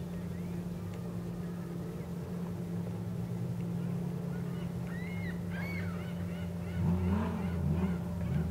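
Steady low engine hum, with birds calling over it in the second half: a few short chirps about five seconds in, then a run of louder calls rising and falling in pitch near the end.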